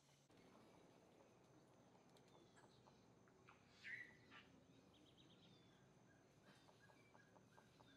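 Faint birdsong: scattered chirps, one louder call about four seconds in, and a quick series of short, even notes near the end.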